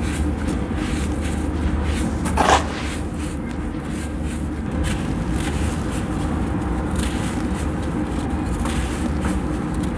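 Dry sand-cement mix crumbled in the hands and trickling through the fingers onto a loose heap, a steady gritty hiss, with one louder crunch about two and a half seconds in and a few fainter ones later.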